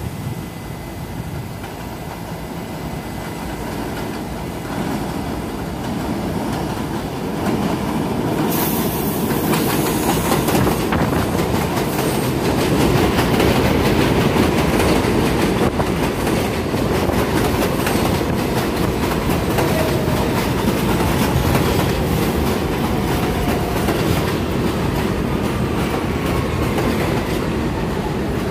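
Subway train on an elevated steel line approaching and running in alongside the platform: a rumble of wheels that grows louder over the first ten seconds or so, then a steady clatter of wheels over rail joints with a faint wheel squeal in the second half.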